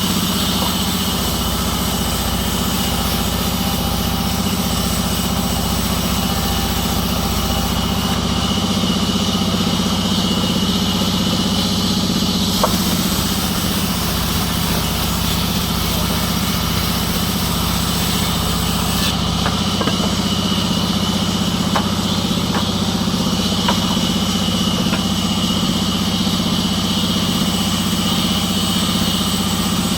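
A sawmill engine running steadily with an even hum, with an occasional faint click.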